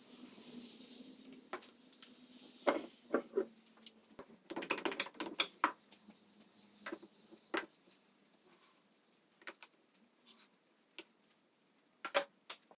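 A pencil scratching along a wooden board, then scattered light knocks and taps as the board is handled and pushed against a table saw's fence and table.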